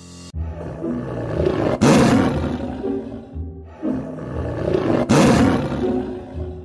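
A tiger roar sound effect, played twice over background music, each roar swelling to a loud peak about two and five seconds in.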